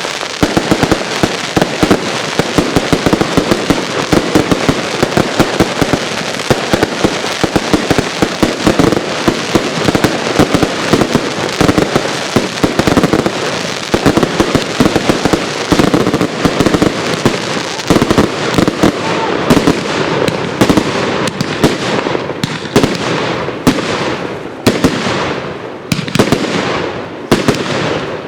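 Consumer firework cakes firing: a dense, rapid barrage of bangs and crackling. In the last ten seconds or so it thins into separate shots, each with a short fading tail.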